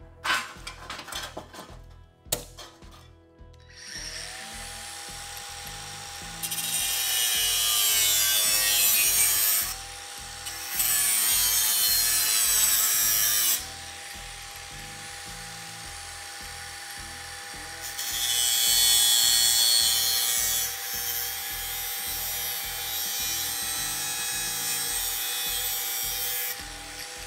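A few clicks and knocks of tools being handled, then a cordless angle grinder with a cutoff wheel spins up about four seconds in and runs with a steady whine. It cuts into a thin sheet-metal patch panel in three long, loud hissing stretches, and the motor note dips under load each time. Background music with a steady beat runs underneath.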